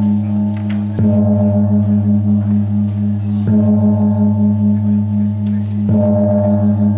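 A large gong struck three times at an even pace, about every two and a half seconds, each stroke ringing on into the next with a throbbing, wavering hum.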